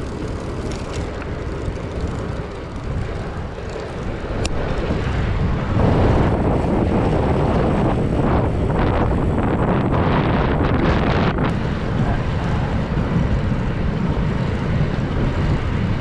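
Wind on a GoPro Hero8's microphone on a fast-moving bicycle. At first it is a low, muffled rush with the Windslayer foam windscreen fitted. About six seconds in it becomes much louder, rough wind buffeting on the microphone without the foam cover.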